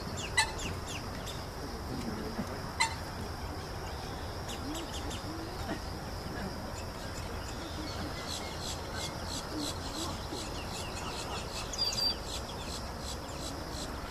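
Mottled duck ducklings peeping: many short, high chirps that come thickest in the second half, with two sharper, louder chirps early on and a brief loud burst near the end, over a steady high background drone.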